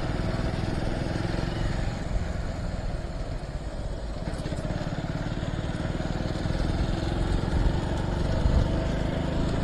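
Motorcycle engine running under way at a steady pace, with a dense low rumble, growing a little louder near the end.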